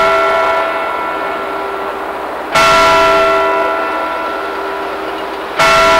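The hour bell of the Zytglogge clock tower, struck by the gilded hammer figure in the belfry. It strikes twice, about halfway through and again near the end, three seconds apart. Each stroke rings on and slowly fades, and the ring of the stroke just before is still dying away at the start.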